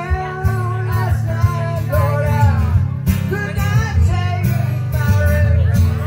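Live acoustic guitar strummed steadily under a sung melody line with held, wavering notes.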